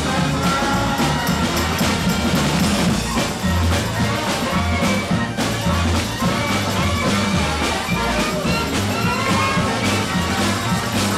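Live New Orleans-style parade band playing a second-line tune: a steady drum-kit beat under melody lines.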